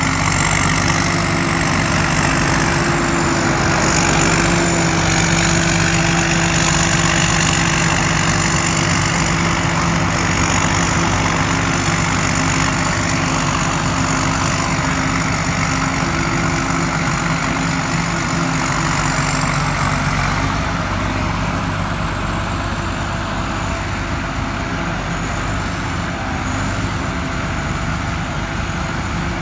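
Combine harvester running steadily, its engine hum overlaid by a thin high whine and a broad rushing noise from the threshing and blower, which run loud. It eases slightly about two-thirds of the way through.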